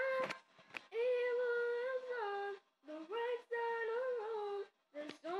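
A young voice singing a cappella in long held phrases, each note sustained for a second or more, with brief breaths between phrases.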